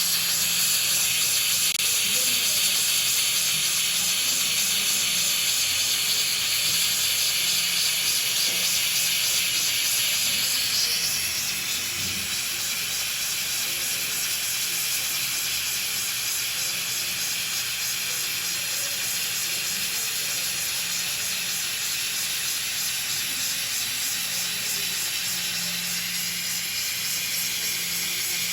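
Hot-air plastic welding gun blowing a steady hiss while welding PVC. The hiss becomes a little quieter about eleven seconds in.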